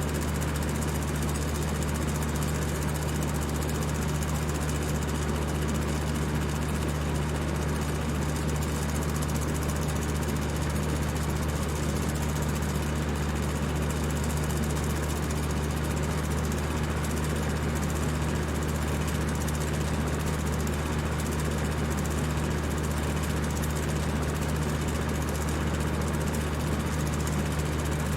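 Electric fan running at high speed: a steady whir of rushing air over a constant low motor hum, unchanging throughout.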